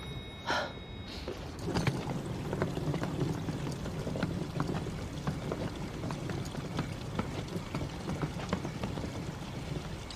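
Suitcase wheels rolling over paving: a steady low rumble with many small irregular clicks, starting a second or two in.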